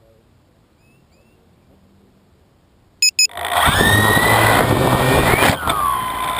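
Small electric motors and propellers of a Lotusrc T380 multicopter spinning up loudly about three seconds in, just after two short electronic beeps, with a whine that rises in pitch and then drops lower near the end. Before that there are only faint bird chirps.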